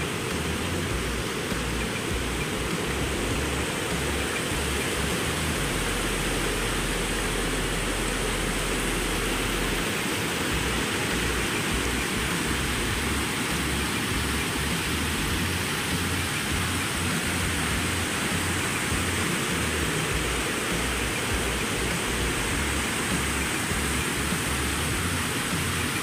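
Stream water rushing and cascading over rock slabs at a waterfall: a steady, unbroken rushing.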